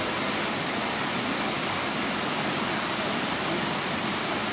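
Steady rush of falling water, an even hiss with nothing else standing out above it.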